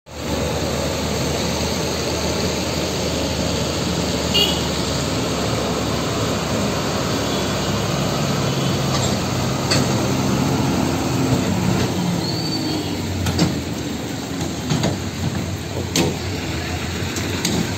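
Heavy diesel truck engine running as a tow truck pulls a double-decker bus slowly past, with street traffic and a few sharp clicks.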